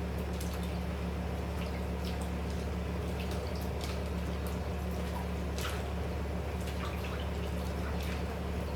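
Pot of mung bean soup simmering on the stove: small scattered bubbling pops over a steady low hum.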